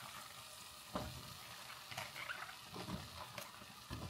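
Cubed eggplant dropping from a colander into a pot of tomato-paste sauce, the pieces landing with a few irregular soft thumps while a wooden spoon stirs them in, over a faint sizzle.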